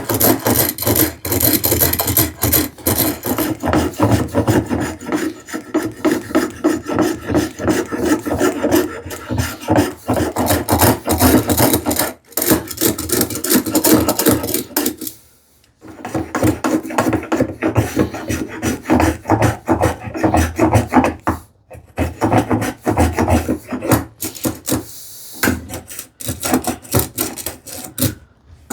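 Spokeshave with a freshly honed blade, set for a deeper cut, shaving wood along a curved edge: a long run of quick rasping strokes with a few short pauses.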